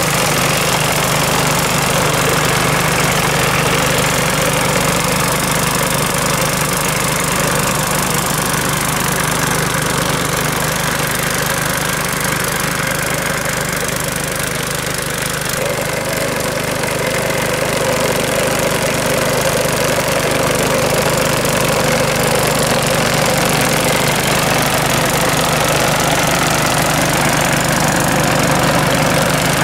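Rotakt walk-behind sickle bar mower's small petrol engine running steadily as the mower cuts through tall grass.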